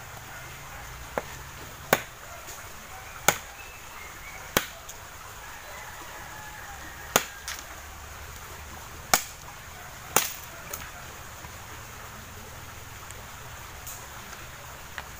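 Bolo machete chopping sticks of wood: six sharp chops and a few lighter knocks at irregular intervals, about one to two seconds apart, through the first eleven seconds, then one light knock near the end.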